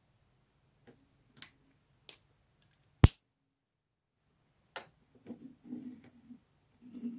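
Quiet handling of fabric squares, an acrylic quilting ruler and a marking pen on a tabletop: a few light clicks and taps, then one sharp click about three seconds in, loudest of all. After a pause come another click and soft rubbing as the marker draws along the ruler's edge on the fabric.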